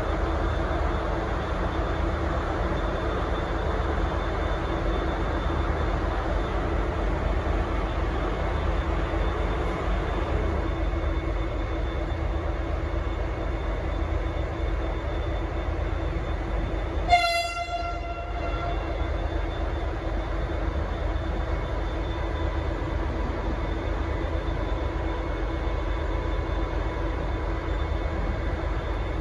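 A diesel locomotive's engine running steadily, with one short blast, about a second and a half long, on its Leslie RS5T five-chime air horn about two-thirds of the way through.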